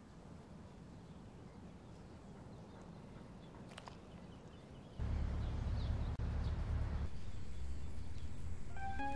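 Low rumbling ambient sound effect that builds slowly and jumps much louder about five seconds in, with a few faint high chirps a little before that. Bell-like music notes begin right at the end.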